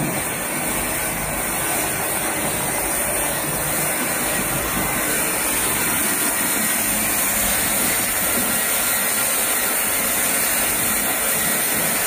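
Clamping-type bottle and jar washing machine running with water spraying inside: a steady rushing hiss that does not change.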